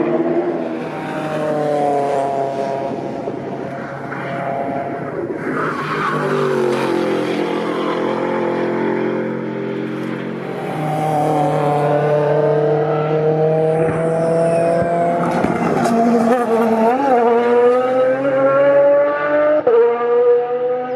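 Race and high-performance sports cars driving past on a circuit one after another, their engines rising and falling in pitch as they accelerate, shift gears and brake.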